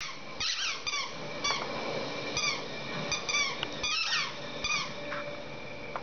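A squeaky tennis-ball dog toy being chewed by a dog, giving about a dozen short, high squeaks in an irregular run, each squeak bending in pitch as the ball is squeezed and released.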